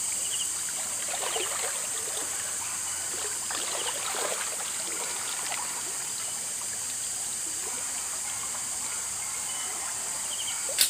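Steady rush of running water pouring from a water outlet over rocks, with a few short insect chirps on top.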